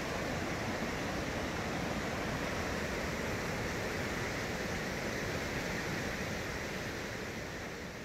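Waterfall rushing: a steady, even wash of falling water that fades slowly toward the end.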